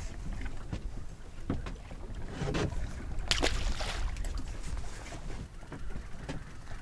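Wind on the microphone and water against the hull of a small boat drifting at sea, a steady low rumble. Short knocks of fish and tackle being handled are scattered through it, and a louder rushing noise comes about three and a half seconds in.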